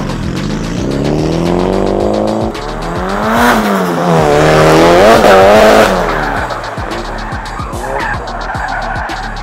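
Drift car engine revving up and down hard several times, its pitch climbing and falling, loudest around the middle, with tyres skidding and squealing as the car slides.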